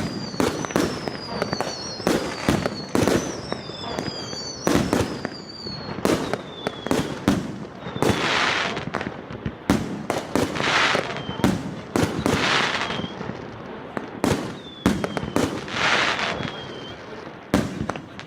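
FP-B418 firework battery (cake) firing a rapid string of shots: sharp bangs, with whistling tails falling in pitch through the first half. Later, longer rushing bursts come about every two seconds.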